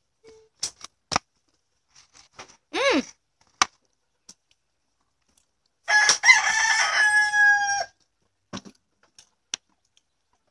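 A rooster crows once, one long call of about two seconds starting about six seconds in, opening ragged and then holding a steady tone that drops at the end. A shorter rising-and-falling call comes about three seconds in, and a few sharp taps are heard early on.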